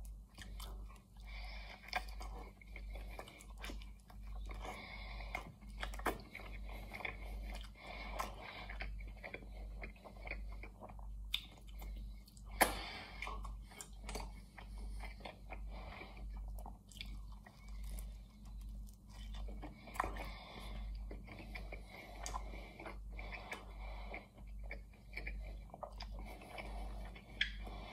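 Close-up chewing and biting into a roast chicken pie, its flaky pastry crunching between steady chews, with one sharp, louder crunch about halfway through.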